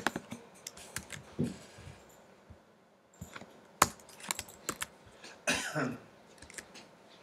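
Computer keyboard keys clicking in short, irregular taps. About five and a half seconds in there is a brief throat sound, like a cough or throat-clearing.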